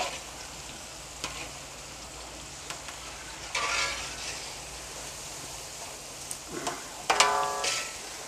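Chips deep-frying in medium-hot oil in a steel kadhai, a steady sizzle, while a slotted metal skimmer stirs through them. The skimmer scrapes against the pan with a short ringing scrape about four seconds in, and again, louder, near the end.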